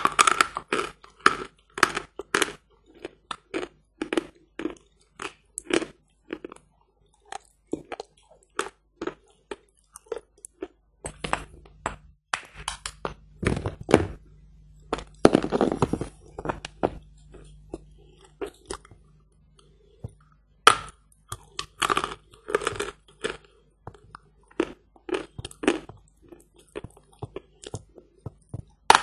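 Hard "Badger" chalk bitten and chewed close to the microphone: a run of short, dry, sharp crunches as pieces are ground between the teeth. In the middle, a longer crumbling scrape as a chunk is broken off by hand.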